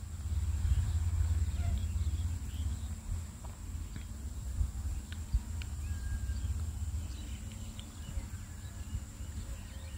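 Armature of a Hitachi C7SS circular saw spun by hand in its freshly greased ball bearing: a low rumble that is strongest at first and dies away over a few seconds as it coasts down, with a few light clicks of handling.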